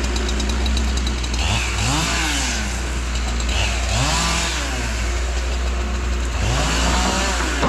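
Chainsaw revving up and dropping back three times, each rise and fall lasting about a second, over a steady low engine hum.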